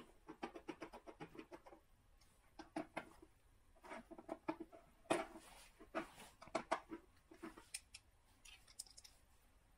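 Light, irregular clicks and scratchy rustles as small electronic parts and their packaging are handled, coming in quick runs with short pauses between them.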